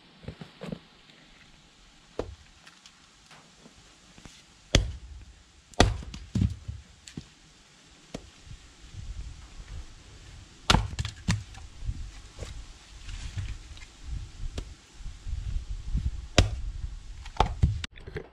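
Pieces of firewood knocking together: about half a dozen sharp wooden knocks at uneven intervals, with shuffling handling noise between them.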